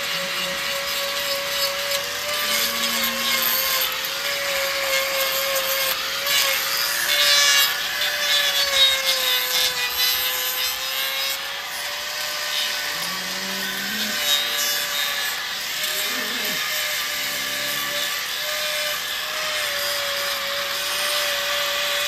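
Angle grinder with a hoof-trimming disc running steadily and grinding down a cow's hoof horn, a continuous whine over a rasping scrape. The motor's pitch dips slightly about ten seconds in as the disc bears into the hoof.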